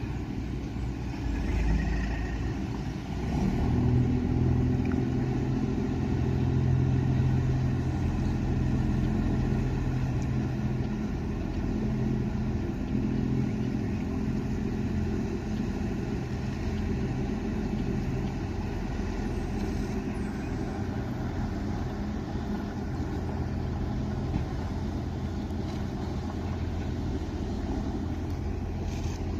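Steady drone of a boat engine running at cruising speed, with a rush of water and wind noise; it grows a little louder a few seconds in and then holds even.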